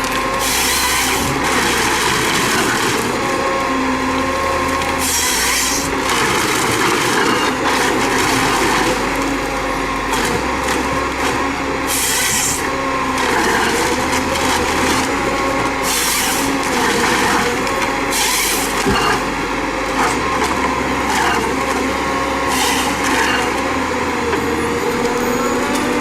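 Heavy wood-processing machine at work: an engine runs steadily under dense mechanical and wood-cutting noise, with a brief hissing burst every few seconds.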